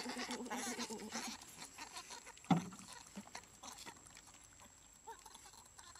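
A baby macaque crying in a wavering, bleat-like whine that fades out just over a second in, then one short, sharp cry dropping in pitch about two and a half seconds in, followed by a few faint chirps.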